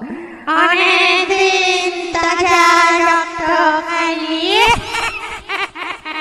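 Eerie high female voice wailing in a long wavering held note, sliding upward in pitch about four and a half seconds in, with a few sharp clicks underneath: a ghostly horror sound effect.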